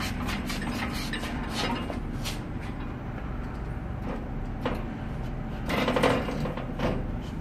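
Steel frame section of a chalk-making machine being dragged and shifted into place: scattered metal knocks and clanks over a low steady hum, with a louder scraping about six seconds in.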